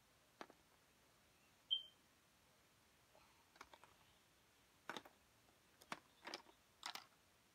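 Near silence broken by faint clicks and taps: a single click early on, a short high chirp about two seconds in, then a handful of sharper clicks in the second half.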